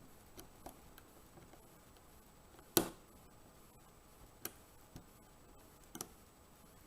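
Scattered sharp clicks of a lock pick working the pin stacks of a 5-pin Era rim cylinder, as pins set and drop. The loudest click comes about three seconds in, with a few lighter ones after it.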